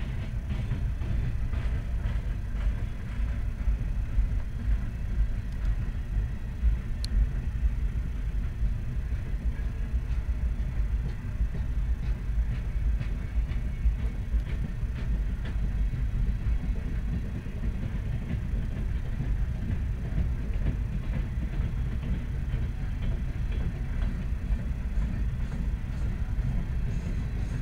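Freight train boxcars rolling past on the tracks: a steady low rumble.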